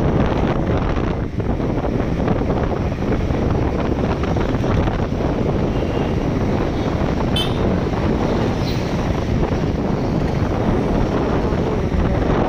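Steady rush of wind on the microphone over the road and engine noise of a two-wheeler riding along.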